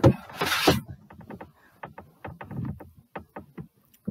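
Handling noise from a giant plush teddy bear being moved right by the microphone. A loud fabric rustle comes at the start, followed by a run of soft knocks and bumps.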